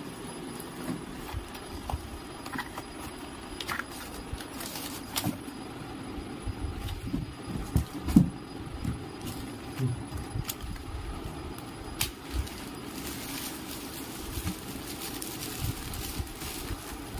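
Plastic packaging being handled while a printer is unboxed: irregular crinkling, rustling and small clicks, with scattered knocks and one louder thump about eight seconds in, over a steady low hum.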